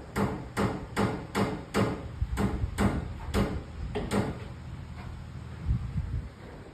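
Footsteps on a bare concrete garage slab: an even, brisk walk of about two and a half steps a second that stops about four seconds in, followed by a low rumble.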